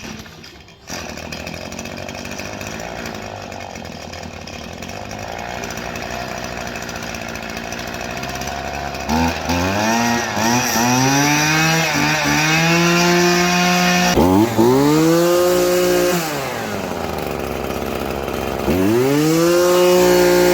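Maruyama string trimmer's two-stroke engine catches about a second in and idles, then is revved three times, its pitch rising to a high whine and falling back between, held at high revs near the end. It runs after new fuel lines, fuel filter and spark plug were fitted to cure a no-start.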